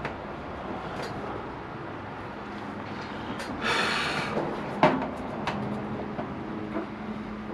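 Workshop handling sounds, a few clicks and a sharp knock, over a steady background of road traffic noise, with a brief loud burst of hissing noise about four seconds in.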